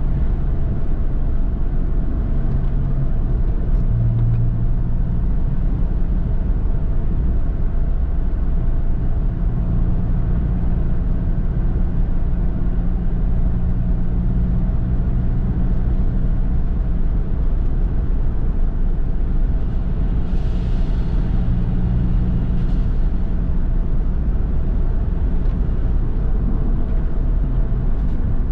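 Porsche 911 flat-six engine running while driving, with steady tyre and road noise; the engine note shifts up and down in pitch. About two-thirds of the way through, a brief hissing rush sounds over it.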